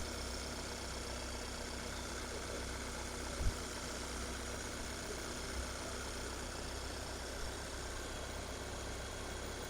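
Volkswagen engine idling steadily with a low hum, run after a coolant reservoir replacement to circulate the coolant and work air out of the cooling system. A single brief knock sounds about three and a half seconds in.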